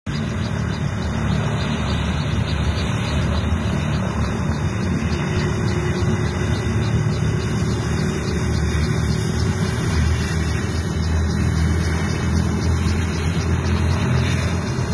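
Helicopter running on the ground, its turbine engine and rotor turning at a steady, loud pitch.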